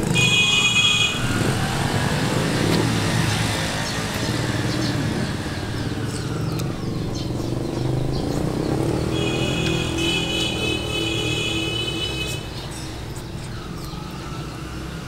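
A motor vehicle engine running, its pitch rising and then falling over several seconds, with a shrill steady tone briefly at the start and again for a few seconds about two-thirds of the way through.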